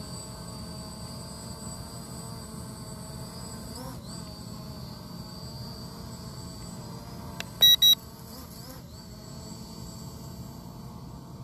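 SG906 Pro quadcopter's brushless motors whining steadily as it hovers low, their pitch bending together briefly twice. Two short, loud electronic beeps come in quick succession just past the middle.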